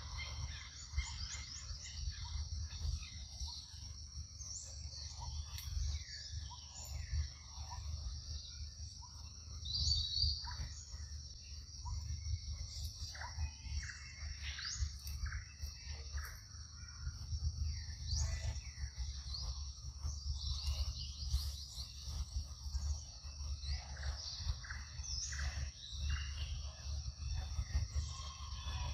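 Forest ambience: a steady high insect drone with scattered short chirps and squeaky animal calls over a low rumble.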